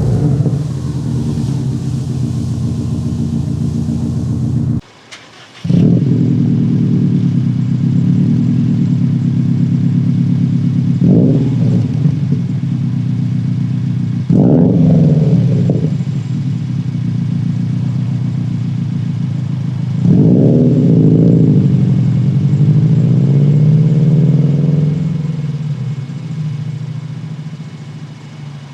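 Subaru STI's EJ25 turbocharged flat-four running through a Noble titanium cat-back exhaust: a steady idle with a few short blips of the throttle. The sound breaks off abruptly for under a second about five seconds in, then resumes.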